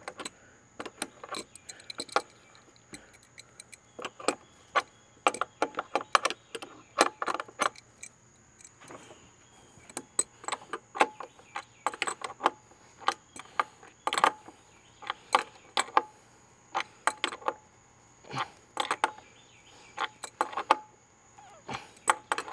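Adjustable wrench clinking on nuts and washers as bolts are snugged up hand tight: quick runs of sharp metal-on-metal clicks with short pauses between turns.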